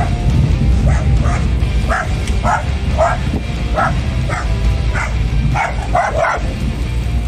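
A dog barking repeatedly as it runs alongside a moving car: about a dozen short barks, one or two a second, with a quick run of barks near the end. Under them runs the steady low rumble of the car's engine and tyres.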